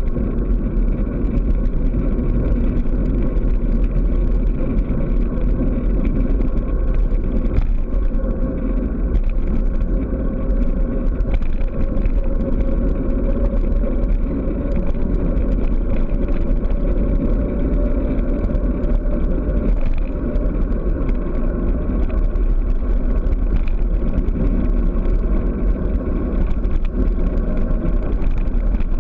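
Wind rushing over the microphone of a handlebar-mounted action camera on a fast bicycle descent, a loud, steady, deep rumble. A faint hum under it rises slowly in pitch partway through.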